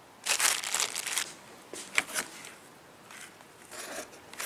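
Plastic packaging crinkling and rustling in short bursts as parts wrapped in plastic are handled. The longest bout comes in the first second, with smaller crinkles after.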